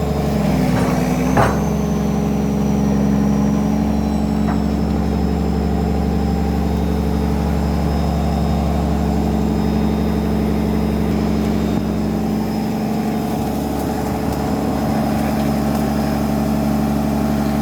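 Excavator's diesel engine idling steadily, with one sharp knock about a second and a half in.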